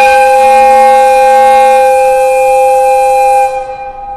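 Locomotive whistle sounding one long, steady blast with a strong hiss of escaping air. It cuts off near the end.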